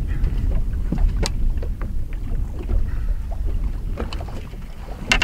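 Wind rumbling on the microphone aboard a bass boat on choppy open water, with scattered light knocks and clicks.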